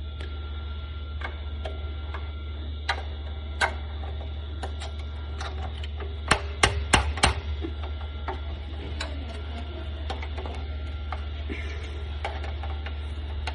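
Scattered sharp clicks and taps of a paper cutter's side guide and its parts being handled and fitted, with a quick run of four louder clicks about six to seven seconds in, over a steady low hum.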